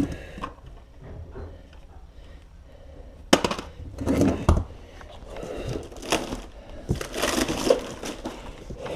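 A person handling a cardboard box makes irregular knocks, crunching and rustling, with a sharp knock a little over three seconds in and busier handling noise after it. Heavy breathing runs along with it.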